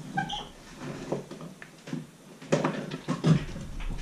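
Workshop handling noise: a short squeak near the start, scattered clicks, then a cluster of sharp knocks and clatters from about two and a half seconds in as the camera is bumped.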